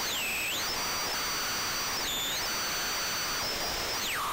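Mystic Circuits Vert Eurorack module with nothing patched, used as a noise source: a harsh hiss with high whistling tones that glide apart and back together every half second or so. About four seconds in, the tones drop steeply to a lower steady whine. The module is running purely off fluctuations in its power supply, a circuit quirk rather than a patched signal.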